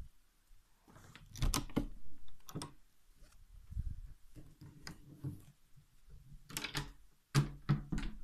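Scattered knocks, clicks and rustles from a handheld phone camera being carried through rooms, with footsteps on a wooden floor.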